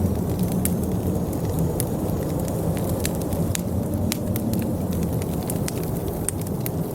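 Wood fire in a fireplace crackling, with frequent sharp irregular pops, over a steady low rumble of blizzard wind.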